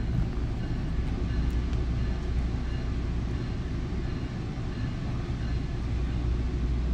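Steady low rumble of a Bombardier MultiLevel commuter coach heard from inside while the train is under way, its wheels running on the rails.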